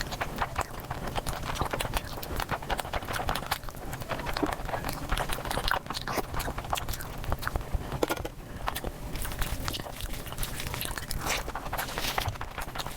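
Mukbang ASMR eating sounds sped up about four times: a fast, dense run of chewing, smacking and crunching clicks that comes out sounding like a patter of hooves.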